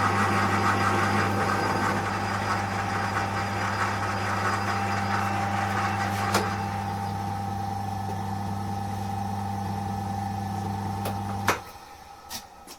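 Colchester Master lathe running with a steady motor hum and gear whine. It grows quieter after a click about halfway through. Near the end a sharp click comes and the hum cuts off suddenly as the machine is switched off.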